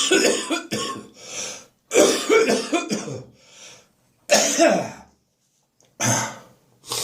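A person coughing a deep, wet chest cough from a spring cold that has settled in the chest, in repeated loud bouts: one carrying over at the start, then others about two, four and a half and six seconds in, and a short one at the very end.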